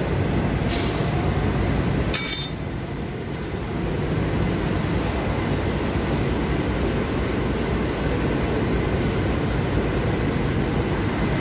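Steady low rumbling noise, with a sharp metallic clink about two seconds in as a hex key is worked on the bolt of a steel length stop.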